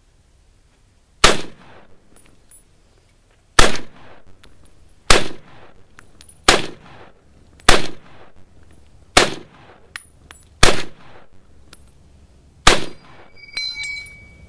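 M1 Garand rifle in .30-06 fired eight times in semi-automatic, shots about one to two seconds apart, each with a trailing echo. Just after the eighth shot comes the short ringing ping of the empty en-bloc clip ejecting from the emptied rifle.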